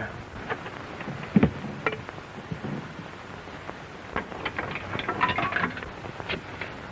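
Steady hiss of an old 1930s optical film soundtrack, dotted with scattered clicks and pops, with a low thump about a second and a half in.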